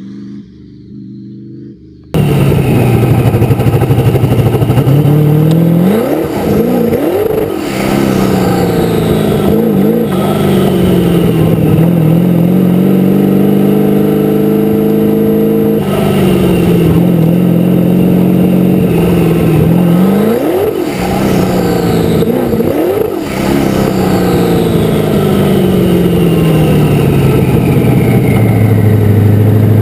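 Twin-turbocharged LQ9 V8 of an open-wheel race car, loud and close from about two seconds in, heard from right behind the engine. It revs up sharply twice, falls away in long downward sweeps as the car slows, and settles to a steady idle near the end.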